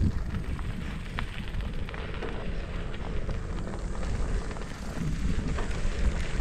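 Wind rumbling on the microphone of a camera on a moving bicycle, mostly a low steady rumble. A few faint clicks come through as it rolls along a concrete road.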